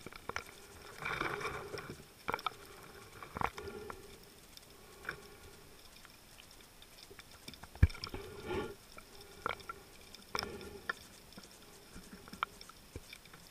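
Muffled underwater gurgling in short bursts, each half a second to a second long, with scattered sharp clicks, the loudest about eight seconds in.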